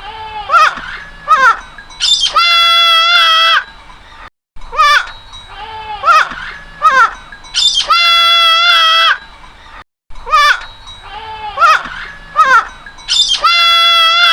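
Young goats bleating: a few short, falling cries, then one long wavering bleat. The same sequence repeats three times, about every five and a half seconds.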